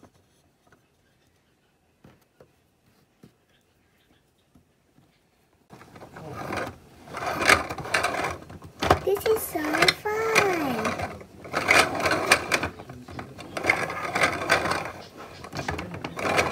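A few small plastic clicks, then about six seconds in a battery-powered toy carousel starts up and spins. Its built-in music plays loudly over the whirr of its motor and gears.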